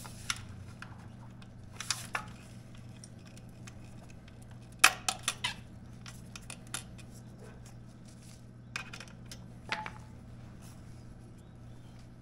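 Metal clinks and knocks as the Yamaha MT-10's stock muffler and Leo Vince mid-pipe are shifted and lined up for a mounting bolt, the loudest a quick run of clinks about five seconds in. A steady low hum lies underneath.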